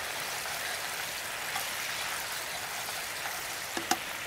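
Steady hiss of a skillet of sauce cooking on a stove burner as it is stirred with a spoon, with two light knocks of the spoon against the pan near the end.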